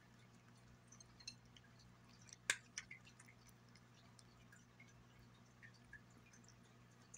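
A cat eating off a glass plate: faint wet licking and chewing with scattered small clicks, and one sharper click about two and a half seconds in.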